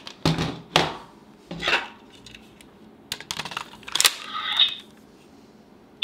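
Plastic clicks and clacks of a Kamen Rider Mumeiken Kyoyo toy sword and its sheath being worked as the blade is drawn for the finisher. About four seconds in comes a brief electronic sound effect from the toy's small speaker.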